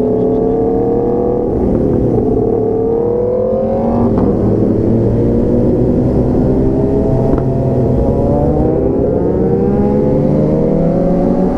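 Motorcycle engine pulling under way, its pitch rising, dropping sharply at gear changes about two and four seconds in, then climbing slowly and steadily.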